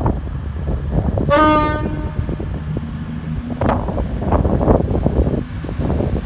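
Train horn sounding one short single-note blast of about half a second, about a second in. Under it runs the train's loud low rumble and clatter.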